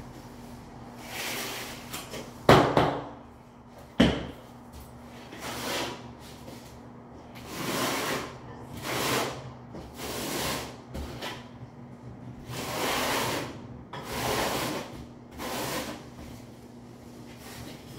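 Repeated hand scrubbing and scraping strokes on the floor as leftover thinset mortar is cleaned up during floor tiling, about a dozen strokes at roughly one a second. Two sharp knocks, about two and a half and four seconds in, are the loudest sounds.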